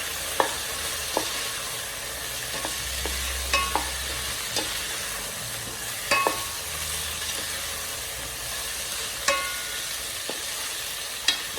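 Carrots, cauliflower and green beans sizzling in a frying pan as they are stirred with sauce, with the spatula clicking against the pan about seven times.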